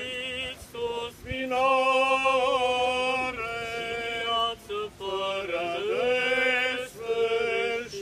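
Male voices chanting an Eastern Orthodox memorial hymn for the departed, sung slowly in long held notes with short breaks between phrases.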